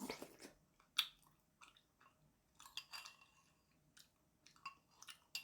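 A person chewing food close to the microphone: a faint scatter of short mouth clicks and smacks, roughly one a second.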